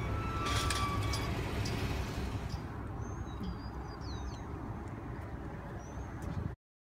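Outdoor low steady rumble with a few short, high bird chirps about three seconds in. The sound cuts off abruptly near the end.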